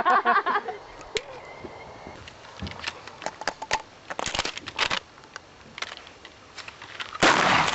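Scattered light clicks and knocks, then a sudden loud gunshot about seven seconds in.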